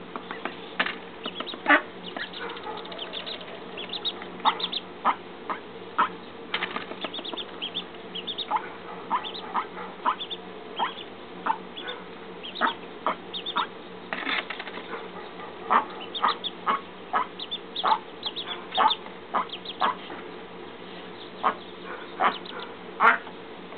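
Mallard hen and duckling pecking at cat food on concrete: a steady run of sharp, irregular taps and clicks from their bills striking the ground and the bowls, sometimes in quick pairs.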